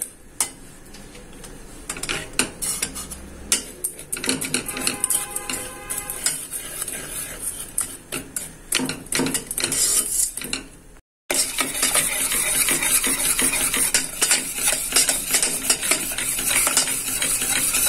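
A metal spoon stirring and scraping against a stainless steel pot, with many irregular clinks, while sugar melts into caramel. After a brief cutout about 11 seconds in, the scraping goes on in the melted caramel over a steady high hiss.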